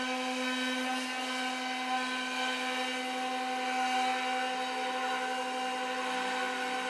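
A handheld electric power tool running steadily, a constant motor hum with a hiss over it.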